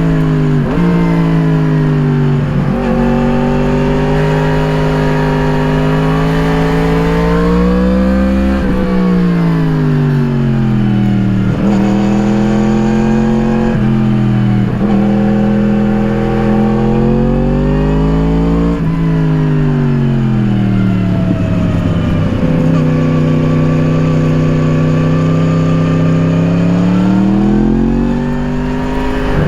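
2017 Yamaha MT-10's crossplane inline-four with an Akrapovič slip-on exhaust, ridden hard: the engine note climbs under throttle, then falls sharply at each gear change or roll-off. The pitch rises and drops several times, holding steadier in the middle and near the end.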